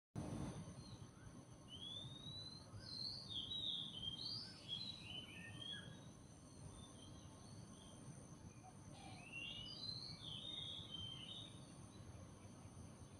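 Birds singing: short gliding, warbling phrases in two spells, one from about a second and a half in and another around nine seconds in, over a faint steady high-pitched hum.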